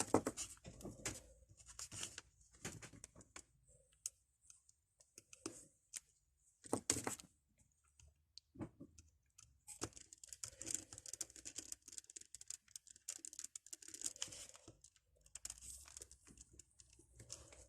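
Small plastic phone parts being handled and fitted during reassembly: scattered light clicks, taps and scrapes, busiest in the second half.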